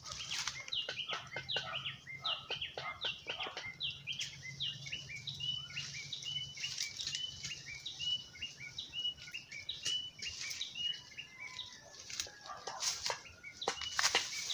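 A bird calling in a long run of short, falling high notes, about two to three a second, stopping about three-quarters of the way through. Under it, leaves and branches rustle and crackle as they are pulled, more so at the start and near the end.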